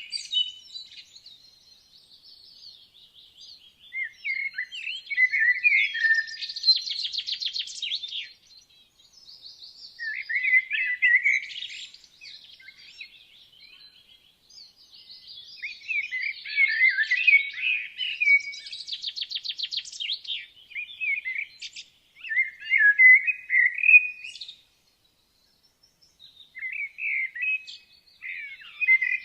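Songbirds singing in a woodland dawn-chorus style: clear song phrases come every few seconds, several ending in a rapid trill, with a short lull about three-quarters of the way through.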